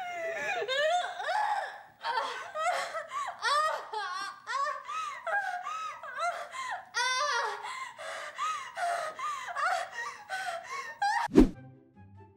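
A woman in a horror-film scene crying out and gasping over and over, her voice high and straining, breaking off into short breaths. A loud thump comes near the end.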